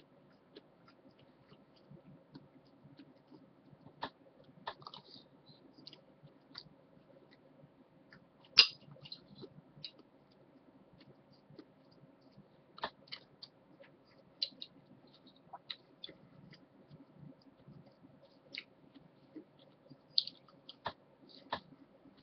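Someone eating stew with a spoon: scattered sharp clicks of the spoon against the bowl and soft chewing, the loudest click about eight and a half seconds in, over a faint steady hum.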